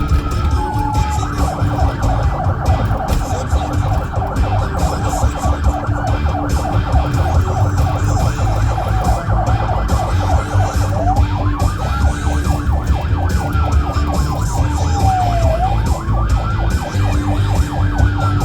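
Florida Highway Patrol cruiser siren sounding a fast yelp, then switching about halfway through to a slow wail that rises and falls, over a heavy low rumble from the vehicle driving.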